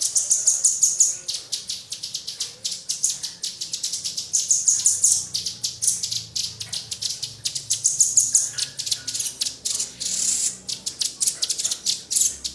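Recorded calls of small wild songbirds: a rapid, unbroken stream of sharp, high chips and short trills, many a second, played as a masteran recording for tutoring caged songbirds.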